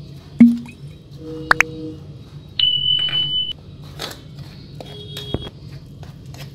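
A metal spoon clicking and scraping against a ceramic bowl while mixing besan (gram-flour) batter. Over it play electronic sound effects: a loud thud about half a second in, short tones with a rising glide, a held high beep a little under a second long, and a shorter pair of tones near the end.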